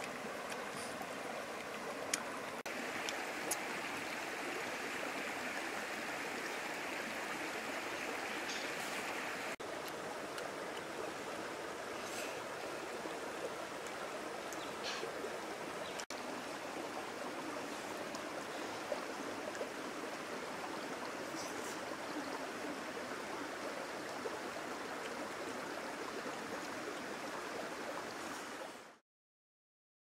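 Steady rush of a flowing stream, with a few faint clicks scattered through it. It cuts off suddenly near the end.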